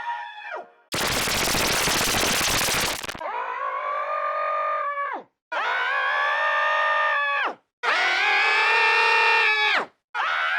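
A cartoon character's scream played back at a lowered pitch, repeated over and over: four drawn-out screams, each dropping in pitch as it ends. Before them, from about one to three seconds in, comes a harsh rattling noise burst.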